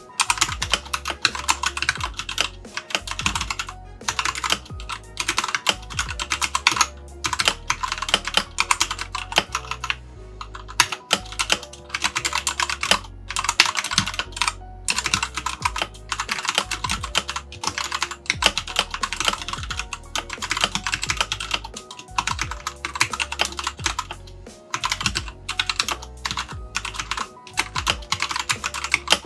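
Typing test on a Keychron K4 mechanical keyboard with Gateron Brown switches and pudding PBT keycaps: runs of rapid keystroke clicks, with short pauses every second or two.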